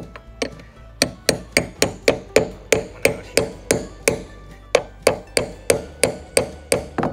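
Hammer striking the steel shaft of a cat's paw nail puller, about three sharp blows a second, each with a short metallic ring. The blows drive the claws down around the shanks of copper ring-shank nails in a plywood deck overlay.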